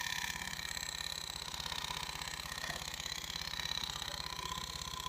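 TVS Jupiter ZX scooter's small single-cylinder engine running steadily at idle with an even, fast low pulse and a thin whine over it. This is the noise that the title puts down to a clutch problem.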